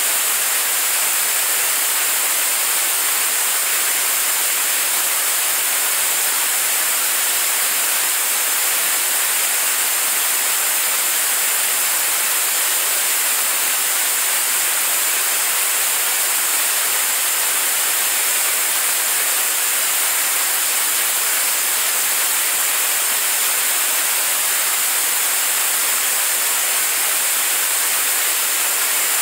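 Staged-combustion liquid rocket engine in a steady hot-fire burn, heard as an even, unbroken hissing rush with little low rumble.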